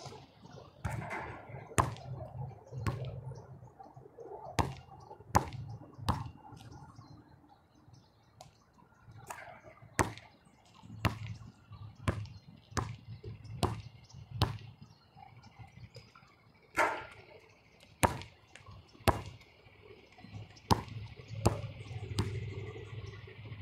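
A basketball bouncing on an outdoor hard court as it is shot, retrieved and dribbled: a string of sharp bounces, about one a second, some coming in quick pairs.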